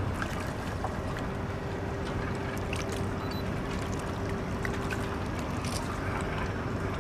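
Harbour ambience: a steady wash of water and open-air noise, with a faint steady hum that comes in about a second in and fades out about five seconds in, and a few small ticks.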